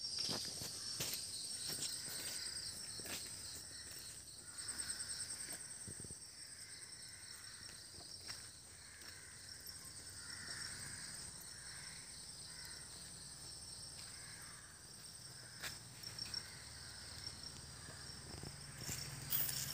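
Faint chorus of insects: a steady, high-pitched, rapidly pulsing trill, with a few soft clicks.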